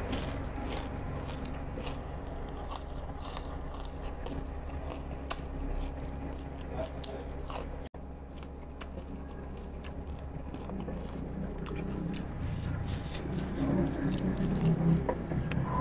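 A person chewing and crunching food close to the microphone, with scattered small crisp clicks over a low steady background hum. There is a brief dropout about halfway through.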